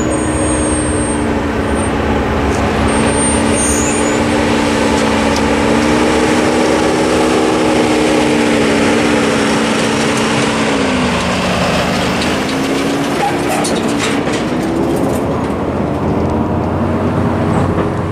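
Engine of a heavy-duty Ford work truck towing a loaded trailer, running steadily as it waits, then dropping in pitch about ten seconds in and rising again as it pulls across the tracks.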